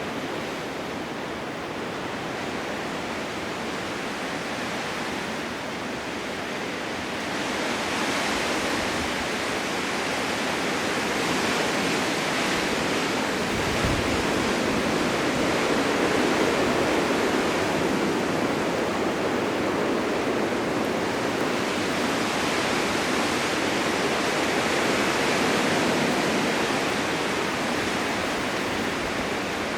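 Blizzard wind: a steady rushing hiss that swells about a quarter of the way in, stays stronger through the middle and eases a little near the end.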